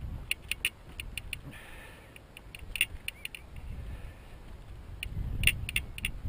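Outdoor handling noise as binding rods are gathered and moved at a laid hedge: a string of sharp, irregular clicks and a short rustle over a low rumble that grows louder near the end.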